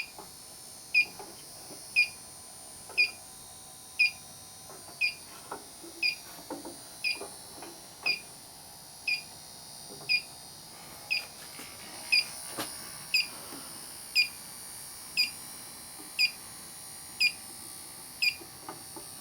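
Electronic refrigerant leak detector beeping at a steady rate of about one short, high beep a second, its idle rhythm with no quickening to signal a leak. Faint handling knocks come in the middle.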